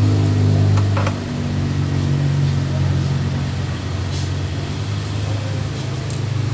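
A steady low mechanical hum that shifts slightly in pitch about a second in, with a few light clicks.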